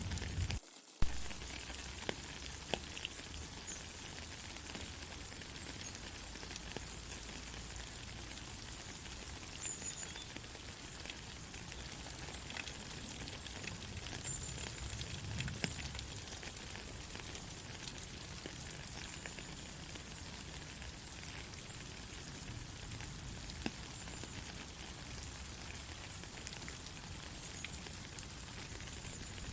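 Steady rain falling, an even hiss with scattered drops ticking on nearby surfaces. The sound cuts out briefly about a second in and comes back with a sharp drop tick.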